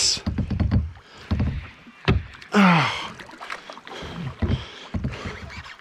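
Fast river water rushing and slapping against a plastic kayak hull, with several dull low knocks from the hull. A short falling vocal exclamation breaks in about two and a half seconds in.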